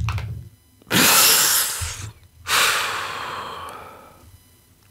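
A man exhales twice in long, heavy sighs close to a microphone, the second trailing off slowly: sighs of dismay at a fateful dice roll.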